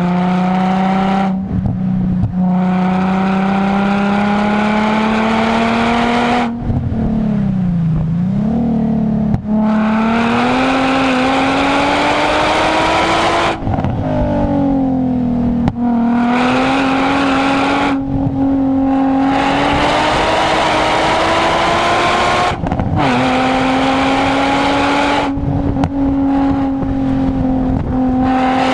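Nissan 350Z's 3.5-litre V6 through a handcrafted Y-back exhaust, pulling hard up a hill road, its note climbing steadily under load. It breaks off about eight times as the driver lifts for gear changes and corners, the revs dropping and picking up again at each break.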